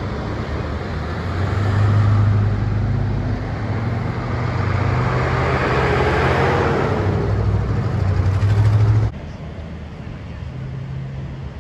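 Highway traffic running over wet pavement: a steady low drone of engines with tyre hiss that swells as vehicles pass about six seconds in. Near nine seconds it cuts off abruptly to a quieter, fainter hum.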